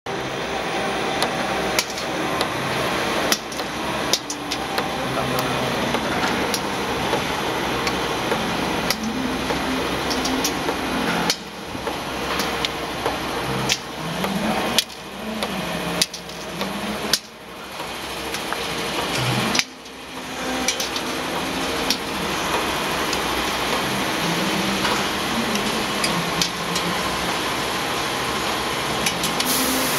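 CNC spring-bending machine running: motors whirring with a pitch that rises and falls, over steady machine noise, and sharp metallic clicks at uneven intervals every few seconds.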